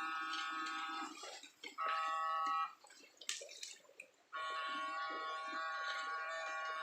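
Electrofishing unit's inverter giving a steady high-pitched whine in on-off bursts as the current is switched into the water: about a second, a short burst near the middle, then a longer one near the end. Small splashes and clicks of water fill the gaps.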